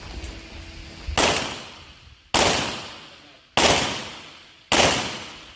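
Four pistol shots, about a second and a quarter apart, each a sudden loud crack trailing off over about a second.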